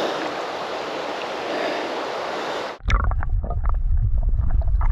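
Creek water rushing steadily for nearly three seconds, then cut off abruptly and replaced by a low, muffled rumble with faint knocks.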